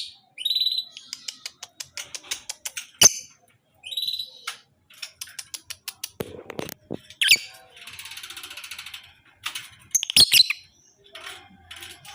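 Lovebird calling in short, broken bursts: high chirps and sharp squawks mixed with runs of rapid clicking notes. There is a buzzy chatter about eight seconds in.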